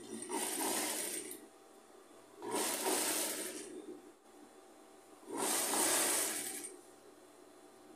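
Industrial sewing machine stitching fabric strips onto a denim base in three short runs, each a little over a second long, with pauses between.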